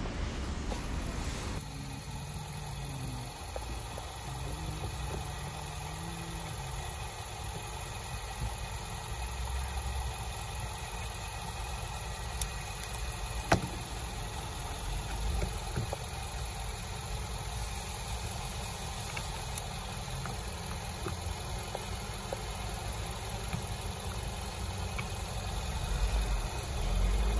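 Steady low rumble of an engine running at idle, with a few isolated sharp clicks.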